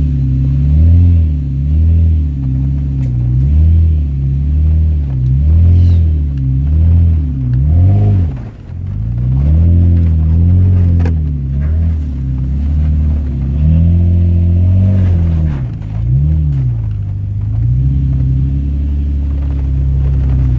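Toyota Tacoma's engine heard from inside the cab, its revs rising and falling again and again as the truck crawls up a steep rocky trail, with a brief drop in revs about eight seconds in.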